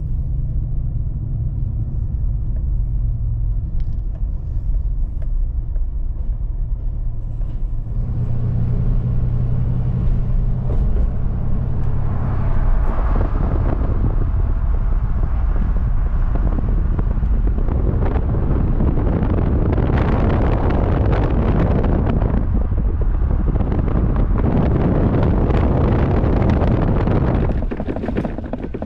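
Steady low rumble, joined about eight seconds in by a louder rushing noise that holds until near the end.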